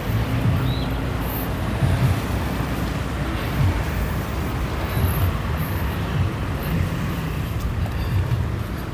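Road traffic noise: a steady low rumble of vehicle engines and tyres.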